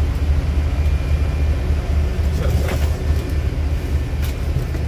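Steady low rumble that holds at an even level throughout.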